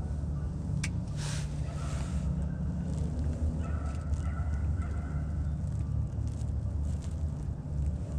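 Strong wind buffeting the microphone in a steady low rumble, with a single sharp click about a second in.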